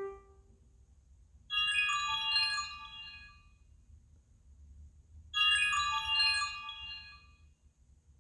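An iPhone 11 Pro ringtone: a short, high-pitched chiming phrase of quick notes, played twice about four seconds apart.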